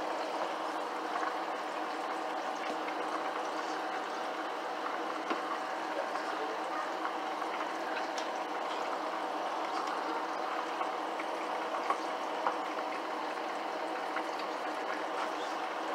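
Cooking oil sizzling and bubbling in a pan for frying fish: a steady hiss with scattered small crackles.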